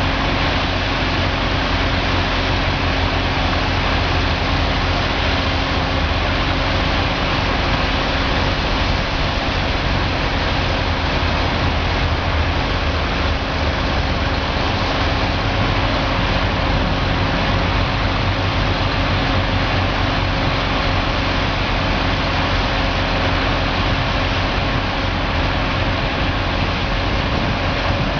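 Truck-mounted, engine-driven pressure washer running steadily at a constant speed, with a low hum and a dense hiss from the high-pressure spray.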